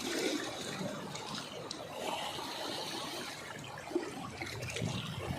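Water trickling and lapping steadily, with a few faint clicks.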